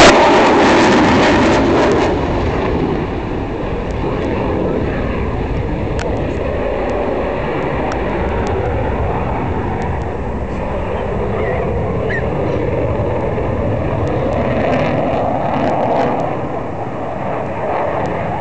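Jet aircraft engine noise from a display flight. It is loudest in the first two seconds as the jet passes, then settles to a steady, more distant roar with slow swells.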